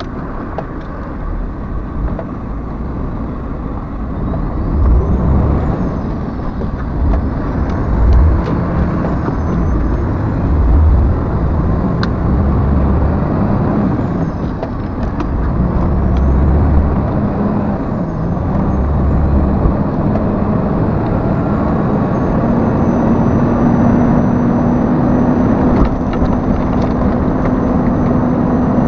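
Heavy truck's diesel engine running with road and tyre noise inside the cab, the rumble swelling and easing as it drives; in the last several seconds it settles into a steady hum.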